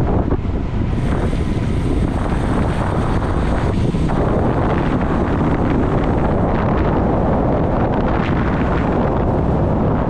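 Wind rushing over a GoPro's microphone on a fast road-bike descent: a loud, steady rush.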